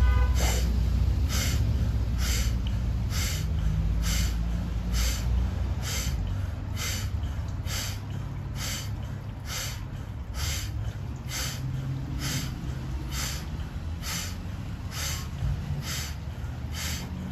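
Rhythmic forceful breathing: quick in-breaths through the mouth, each followed by a sharp sneeze-like blast out through the nose, about once a second at a steady pace, over a low steady rumble.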